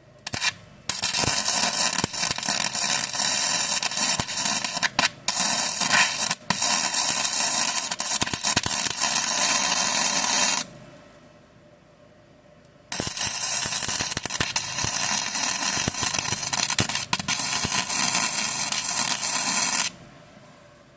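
Gasless flux-core MIG welder crackling as it lays two runs of weld on a steel patch, the first about ten seconds long with a couple of brief breaks, the second about seven seconds. Wax left behind the patch, which the welder blames for a poor weld.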